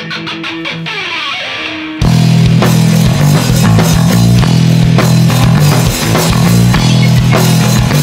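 Live rock band opening a song: a guitar plays alone for about two seconds, then the drums and bass crash in loud and the full band plays on.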